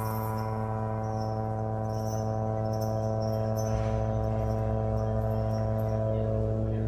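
Live psychedelic space-rock band holding a sustained ambient drone: a steady chord of many held notes from guitars and keyboards over a bass, with no drums. A deeper bass note comes in about halfway through.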